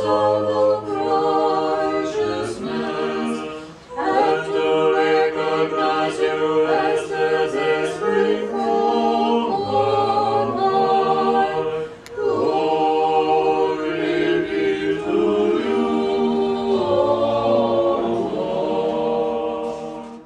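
Small choir singing Orthodox liturgical chant a cappella, holding long notes over a low sustained bass line. There are short breaks for breath about four and twelve seconds in, and the singing stops at the end.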